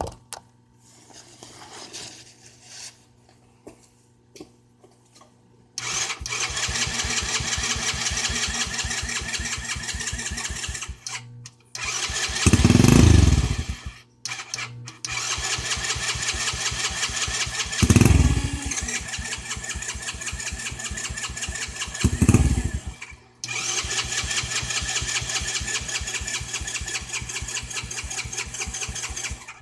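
Four-wheeler engine being started: after a few quiet seconds it runs with a fast, even beat, surges loudly three times with the pitch falling away each time, and drops out briefly in between. It is bogging and shutting off, the fault the owner cannot cure.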